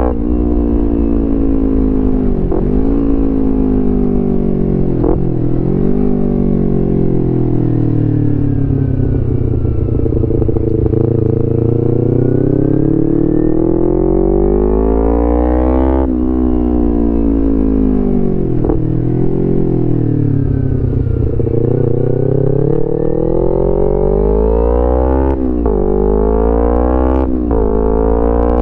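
2011 Kawasaki Ninja 250R's parallel-twin engine through a full Graves racing exhaust, accelerating and shifting through the gears. Its pitch climbs and drops sharply at each shift, with several quick shifts near the start and the end and a long slow rise and fall in the middle.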